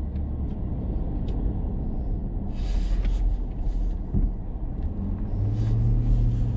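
Low, steady engine and road rumble heard inside a vehicle's cab while driving, with the engine hum growing stronger about five seconds in.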